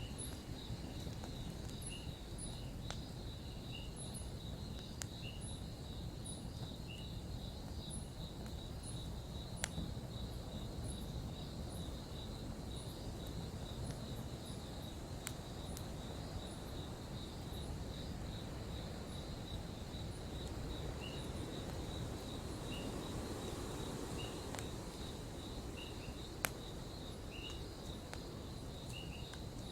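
Campfire burning with a low steady rush and two sharp pops, one about ten seconds in and one near the end, under a continuous pulsing insect trill and rows of short repeated high chirps.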